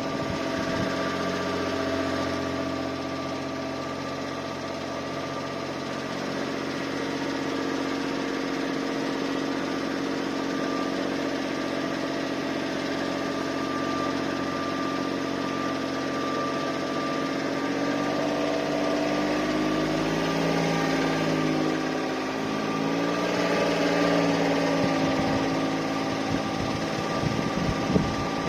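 Suzuki Spacia (MK53S) kei car driving at low speed, its engine and drivetrain running with a thin steady high tone over the engine note. The tones glide up and down about two-thirds of the way through as the speed changes. This is the abnormal noise the car makes at low speed, its cause not named.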